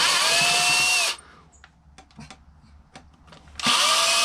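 Cordless screw gun run in two bursts of about a second each, its motor whine rising as it spins up and dropping as it stops, removing screws from the karaoke machine's casing.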